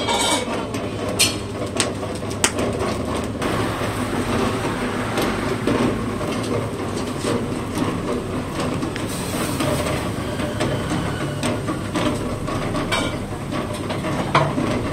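Steady kitchen din with a low rumble, broken by scattered clinks and knocks of utensils and trays.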